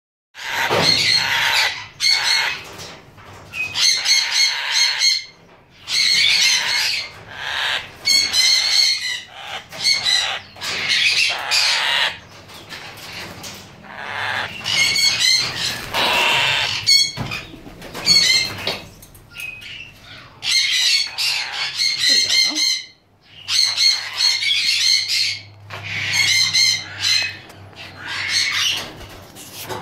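Red-winged parrots (crimson wings) squawking: a long run of harsh, repeated calls, each about half a second to a second long, coming one after another with short gaps.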